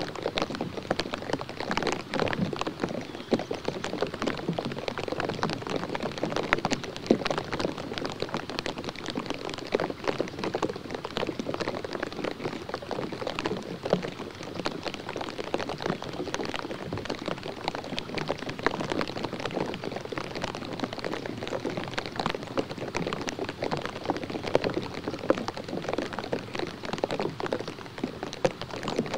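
Rain falling steadily: a dense patter of drops that never pauses.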